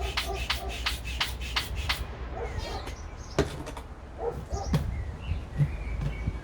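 Air pump inflating a Bosu ball: quick, even strokes of air, about four a second, that stop about two seconds in. Scattered small knocks and a few short chirp-like sounds follow.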